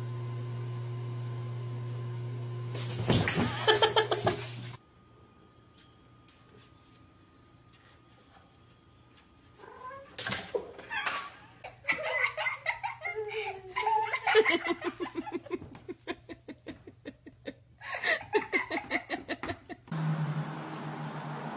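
Cats meowing and yowling in short, repeated pitched calls, over a steady low hum in parts.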